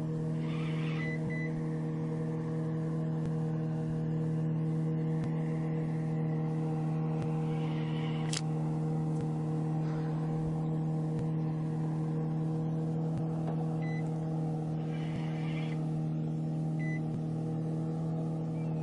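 Boat motor running steadily with an even low hum. A few short high electronic beeps sound about a second in and again later, and there is one sharp click midway.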